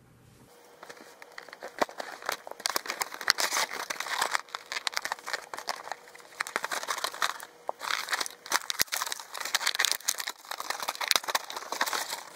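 Toy train box packaging being opened and handled: continual, irregular crinkling and crackling, starting about half a second in.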